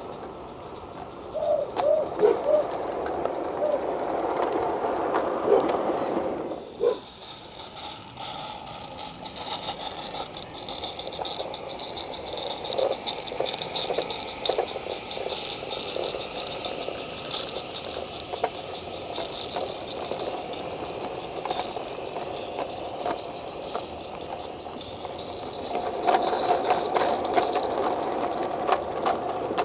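Small-scale garden railway freight wagons rattling and clicking over the track, a sharp cut, then a long soft hiss that swells and fades, with the rattling of passing wagons coming back near the end.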